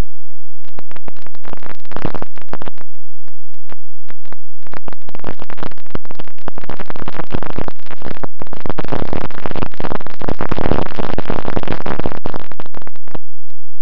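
Wind buffeting the onboard camera's microphone on a model plane in flight, a loud crackle with a short break about three seconds in and stopping suddenly near the end.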